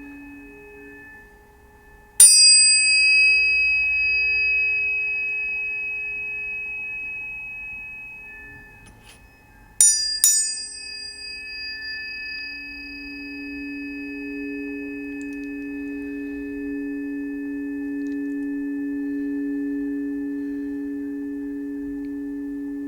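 Planetary tuning forks struck and left ringing together as several steady tones at different pitches. There is one strike about two seconds in and two more in quick succession near the middle. Each strike is a sharp tap with a bright high shimmer that fades over a few seconds.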